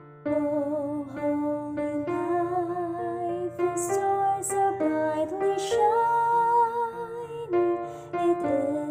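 A woman singing a slow carol melody solo over piano accompaniment, with vibrato on the held notes.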